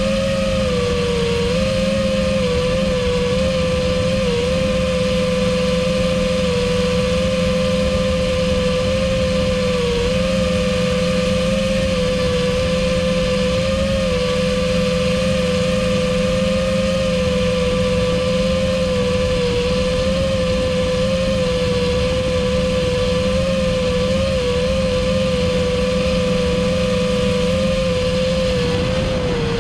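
FPV quadcopter's four Emax ECO 2207 1900kv brushless motors spinning HQ V1S propellers: a steady propeller whine over a lower hum, held near one pitch with small dips and rises as the throttle is eased.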